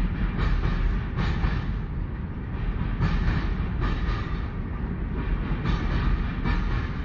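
Model train passenger coaches rolling past: a steady low rumble of wheels on track, with a click-clack about once a second as wheels cross rail joints.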